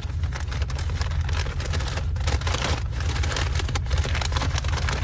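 Paper takeout bag crinkling and rustling as it is opened, over the steady low rumble of a running car heard from inside the cabin.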